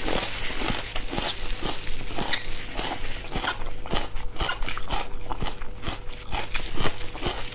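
A person chewing chewy braised meat with the mouth close to the microphone: wet smacking and mouth clicks in an uneven rhythm.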